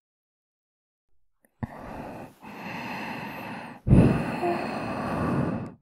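A woman breathing close to a KU100 binaural dummy-head microphone. After about a second and a half of silence come three slow breaths; the last is the loudest, a long sigh with a faint trace of voice.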